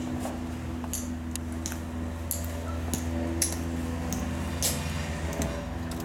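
Hard-soled dress shoes walking on a concrete floor: sharp footstep clicks about every half second to second, over a steady low hum.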